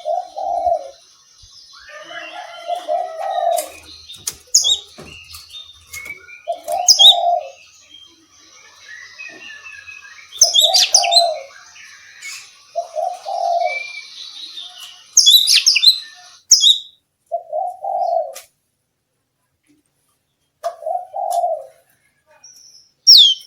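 Oriental magpie-robin (kacer) singing: loud, sharp whistled notes, chirps and quick glides, with low cooing notes repeating every second or two underneath.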